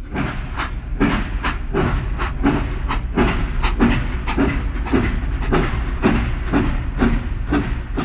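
Express train running on the rails: its wheels clatter over the rail joints at about three clacks a second over a steady low rumble.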